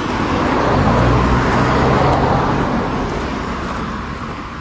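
A road vehicle driving past, its engine and tyre noise swelling to a peak about a second in and then fading away.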